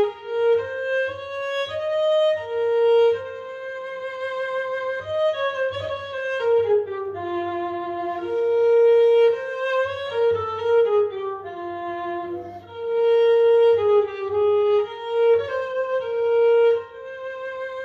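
Solo cello bowed in a slow melody high on the instrument, long sustained notes joined by slides in pitch.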